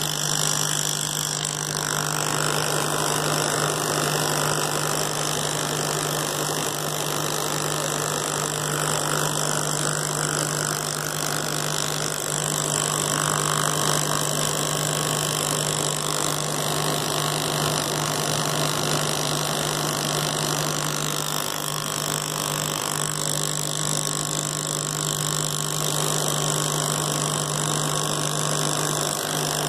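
Compressed-air spray equipment running: a constant low hum with an even hiss of air over it, steady and unbroken throughout.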